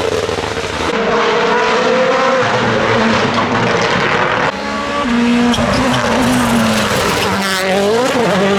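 Rally cars at speed on a tarmac stage, their engines running at high revs with tyre noise. The sound changes abruptly about a second in and again about halfway. Near the end one engine's pitch drops and then climbs sharply as it revs up.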